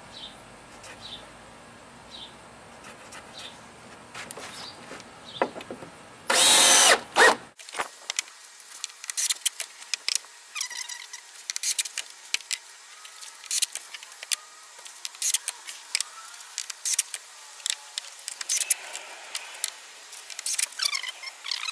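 Hitachi cordless drill driving a wood screw into a deck baluster, one run of about a second about six seconds in. Scattered light clicks and taps follow.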